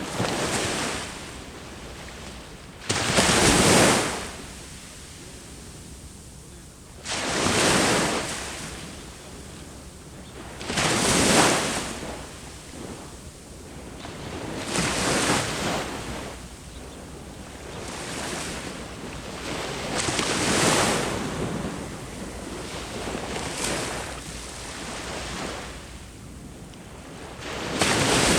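Sea waves breaking and washing up on the shore, each one a rushing surge that swells and dies away, about every three to four seconds.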